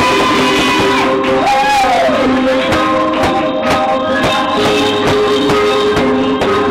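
Loud dance music with a steady beat, with a high sliding melody line over roughly the first two seconds.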